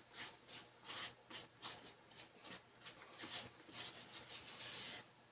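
Plastic spoon scraping and scooping food in a white disposable takeout container: repeated short, quiet scrapes, two or three a second, running together near the end.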